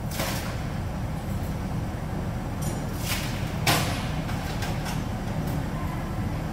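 A steady low mechanical hum, with a few faint clicks and a light knock a little over three and a half seconds in.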